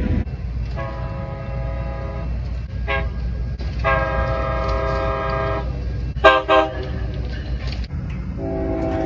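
Locomotive air horn sounding a series of blasts over a low rumble: two long blasts, a short loud one, then a long one beginning near the end, the long-long-short-long pattern of a grade-crossing warning.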